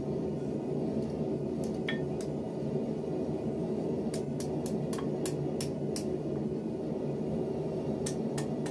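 Hand hammer striking hot steel on an anvil: a couple of separate blows, then a quick run of about seven blows in the middle and a few more near the end, over a steady low background rumble.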